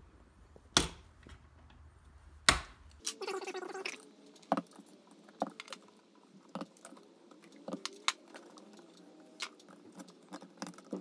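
Pliers and copper wires being handled at a metal junction box: small metallic clicks and rattles, with two sharp snaps about one and two and a half seconds in.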